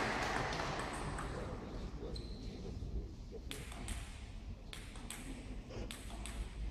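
Applause dying away at the start, then a table tennis ball bouncing: light, crisp pings that come in quick pairs, three times in the second half.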